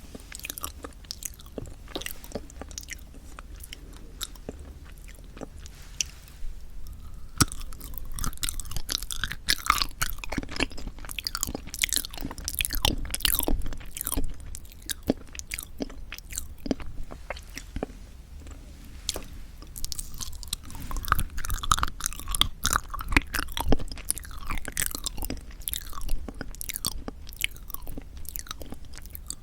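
Close-miked chewing and biting of yanggaeng, dense Korean sweet red bean jelly: soft, wet mouth sounds with many sharp clicks. It is sparser for the first several seconds and busier in two stretches, around the middle and again past twenty seconds.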